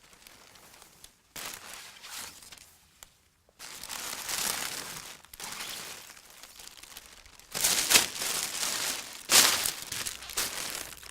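Gift wrapping being torn and crumpled in irregular rustling bursts, loudest in two sharp tears near the end.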